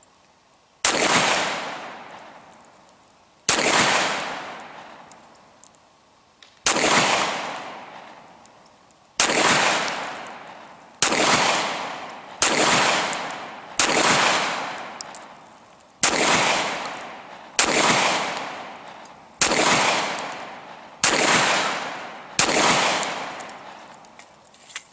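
Twelve single 9mm shots from a Glock 17 in a CAA Micro RONI carbine kit, fired deliberately one at a time at irregular intervals of about one and a half to three seconds. Each sharp crack is followed by a long fading echo.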